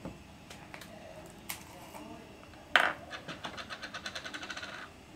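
Small plastic glue pot being opened and used: a few light handling clicks, then a sharp snap a little past halfway as the lid comes off. A quick run of light ticks follows, about ten a second, as a glue brush is worked against the inside of the pot, stopping shortly before the end.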